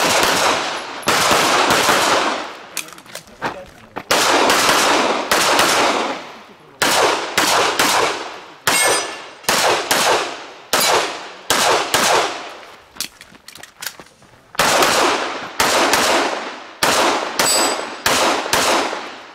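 Handgun shots fired rapidly in strings, many of them in fast pairs, with short pauses between strings; each shot is a sharp crack that trails off in echo.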